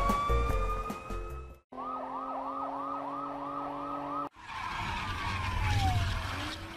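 Police car siren: a rising wail, then a fast yelp of about three rises and falls a second. After a short break a car rushes past while a siren tone falls away.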